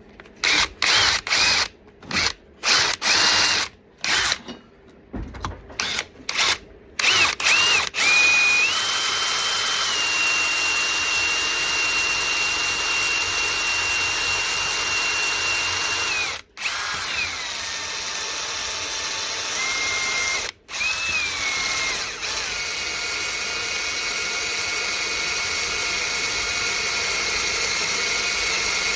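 Electric drill boring a 1/8-inch pilot hole into a broken steel exhaust bolt in a small-block Chevy cylinder head. It starts as a string of short trigger bursts, then runs as a steady motor whine for the rest of the time, with two brief stops.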